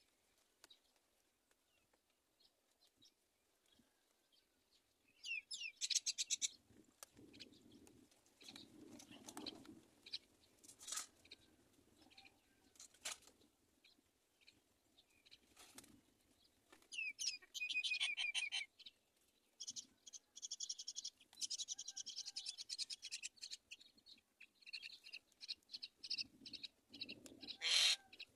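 Myna nestlings calling from the nest in several short bursts of rapid, high notes. This is the begging of chicks waiting to be fed. The loudest burst comes near the end.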